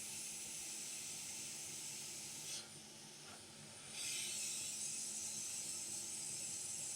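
Hot air rework station blowing through a small nozzle, a steady hiss, while desoldering a large capacitor from a phone logic board. The hiss drops away for about a second and a half near the middle, then comes back slightly louder.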